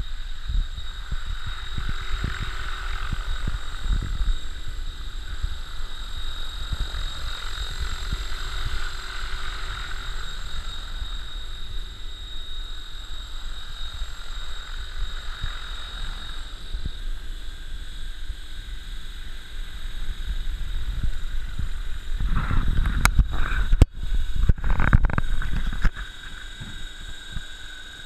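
Radio-controlled scale Bell 47 model helicopter hovering, its rotor and drive giving a steady high whine over a rushing, gusty rumble of rotor wash on the microphone. The rushing grows much louder for a few seconds about 22 seconds in, then drops back near the end as the model sits on the grass with its rotors still turning.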